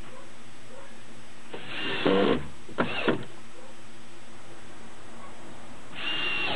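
Cordless screw gun whirring in three short bursts, about two seconds in, at three seconds, and again near the end, driving screws into wood.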